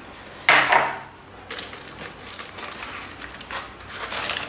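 Handling of plastic packaging: a hard black moulded plastic tray and the plastic wrap around an external hard drive rustling, crinkling and clicking as the drive is lifted out. There is one louder knock about half a second in.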